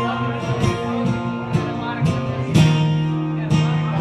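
Acoustic guitar strummed, chords ringing with a fresh strum about once a second.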